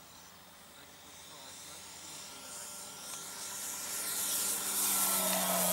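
Electric motor and propeller of a Top-Flite Cessna 182 radio-controlled model plane, a whirring whine with a hiss, growing steadily louder as the plane comes in low and close. Its pitch dips slightly near the end as it passes.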